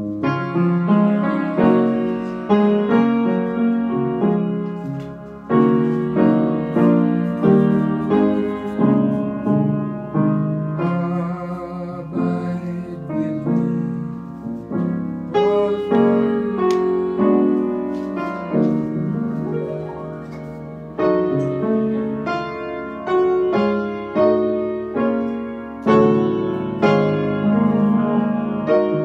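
Solo jazz piano: chords and melody notes struck one after another, each left to ring and fade.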